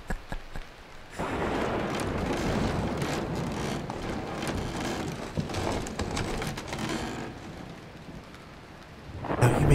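Steady rain-like hiss over a low rumble, like a storm sound effect. It sets in about a second in, fades to a quieter stretch near the end, and a low rumble swells again at the very end.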